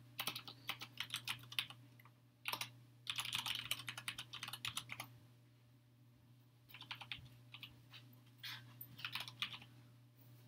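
Typing on a computer keyboard in three quick runs of keystrokes, with short pauses of a second or so between them.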